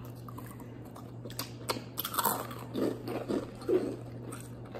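Crunchy rolled corn tortilla chips (Takis) being bitten and chewed close to the microphone: a scattered run of short, crisp crackles.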